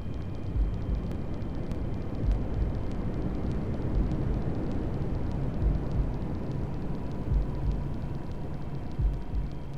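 Steady white-noise hiss under a slow, low heartbeat thump: a double beat about every second and a half to two seconds, as in a fetal heartbeat sleep recording.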